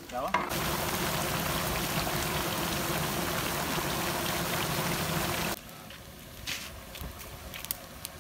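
Thick beef masala bubbling and sizzling in a large pot over a wood fire, a steady loud hiss that cuts off suddenly about five and a half seconds in. After it, quieter scattered crackles and ticks from the open wood fire.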